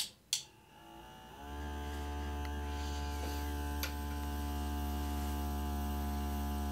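Two sharp clicks, then the diffuser's small 12 V DC micro air pump starts up about a second in and settles into a steady, pitched electric hum as the nebulizing diffuser puts out mist.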